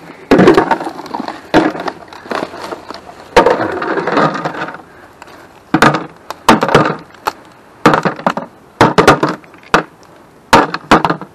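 Dry twigs, grass and leaf litter crackling and snapping as people push through and search undergrowth, an irregular run of sharp snaps, some of them loud, with rustling between.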